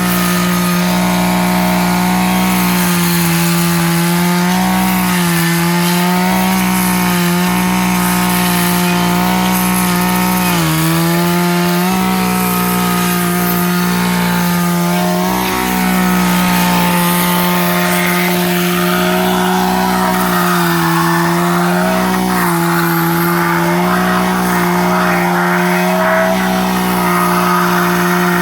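Two-stroke chainsaw running at high revs while cutting a log into boards. The engine note is loud and steady, sagging briefly in pitch several times as the chain takes load in the wood.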